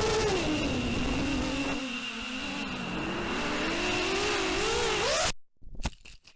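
Whine of an FPV racing quadcopter's RS2205 brushless motors spinning DALProp 6040 propellers. The pitch sinks and then climbs again as the throttle changes. The sound cuts off abruptly about five seconds in, followed by a few brief faint clicks.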